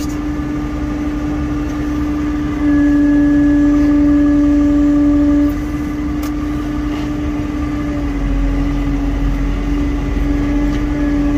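Tractor engine running steadily, heard from inside the cab, with a steady whine over a low rumble. The whine grows clearly louder for about three seconds near the middle, and the low rumble gets heavier about two-thirds of the way in.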